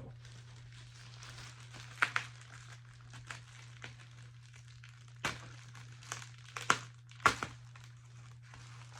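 Packaging rustling and crinkling as boxed Funko Pop figures are handled, with a few sharp knocks or taps of boxes being set down or bumped, the loudest a little past the middle.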